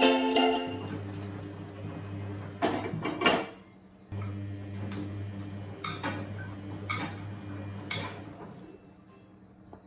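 Several separate clinks and knocks of dishes and utensils being handled, over a steady low hum. Background music stops about a second in.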